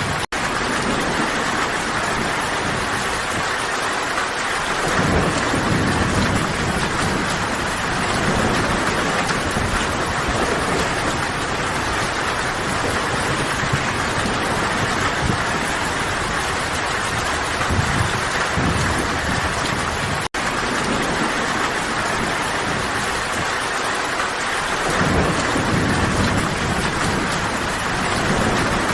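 Steady, heavy rain falling, with low rumbles of distant thunder swelling up several times. The sound cuts out for an instant twice.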